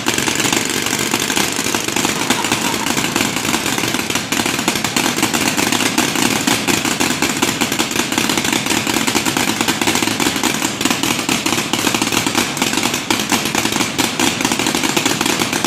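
Many paintball markers firing at once in a continuous volley: a loud, dense, rapid rattle of shots with no break.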